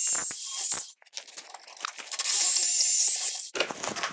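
Cordless drill with a 3/8-inch bit boring through a clamped stack of wooden boards, the motor whining under load as the bit cuts through. It runs twice: it stops about a second in and runs again from about two seconds until about three and a half seconds.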